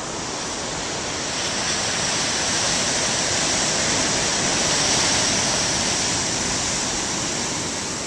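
Large ocean waves breaking on a rocky shore: a steady rush of surf that swells to a peak about halfway through, then eases a little.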